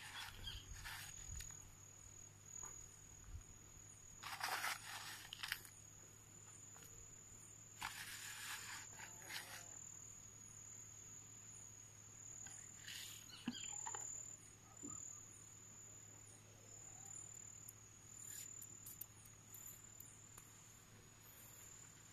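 Faint outdoor ambience: a steady high-pitched insect trill runs throughout. A few short rustles and scuffs come about four, eight and thirteen seconds in.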